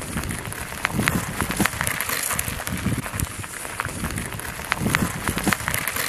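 Lava flow crackling and popping: many sharp, irregular cracks over a steady, rumbling noise.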